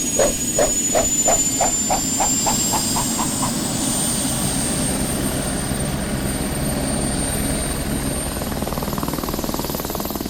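Railroad crossing warning bell ringing in a quickening run of strikes that rise in pitch and stop about three and a half seconds in, over the steady rumble of a passing train.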